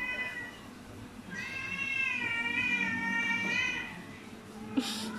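Cat's long, drawn-out wavering yowl during a standoff with another cat: one call ends about half a second in, and a second runs for over two seconds from about a second and a half in. A short sharp noise near the end.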